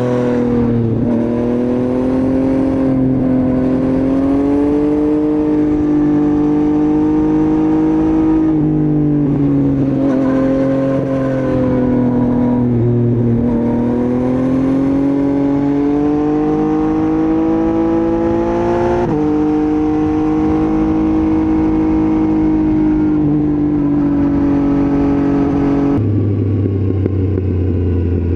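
Motorcycle engine recorded while riding, pulling steadily with its pitch rising and falling. The pitch drops abruptly twice, typical of upshifts.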